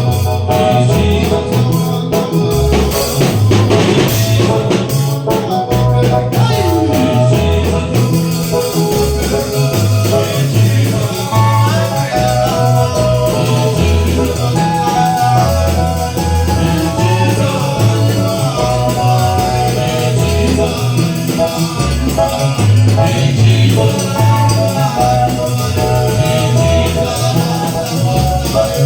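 Gospel worship music: a band with bass and a steady beat with shaker-like percussion, and voices singing.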